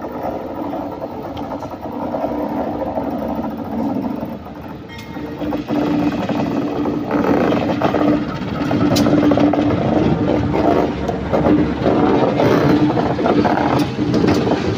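KAI diesel locomotive passing at close range, its engine running with a steady hum that grows louder from about five seconds in, with a few sharp clicks as it rolls over the rails.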